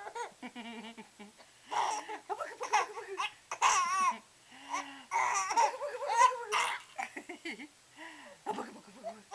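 Baby laughing hard in repeated bursts, some high and squealing, with short pauses between the bursts.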